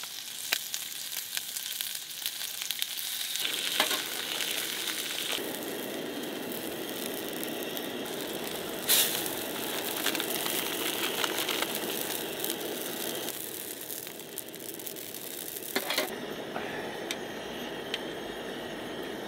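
Food sizzling as it fries in hot fat: a dense crackle with a few sharper pops, growing fuller about three and a half seconds in.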